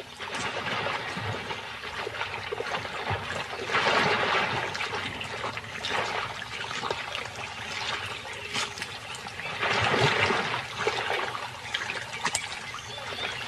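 Muddy water splashing and sloshing as crocodiles thrash and spin over a carcass in a shallow pool, swelling louder about four seconds in and again about ten seconds in.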